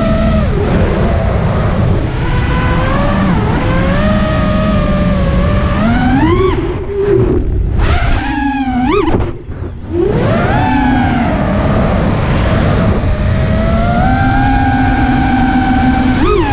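FPV quadcopter's electric motors whining, the pitch rising and falling constantly with the throttle. The whine climbs steeply and swoops about seven to ten seconds in, dropping away briefly around nine and a half seconds before picking up again.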